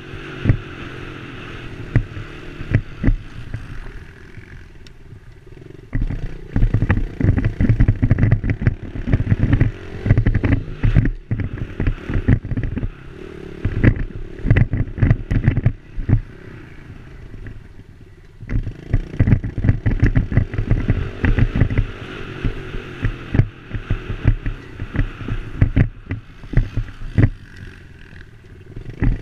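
Dirt bike engine being ridden over rough terrain, revving up and easing off again and again as the throttle opens and closes. Frequent knocks and wind hit the helmet-mounted microphone.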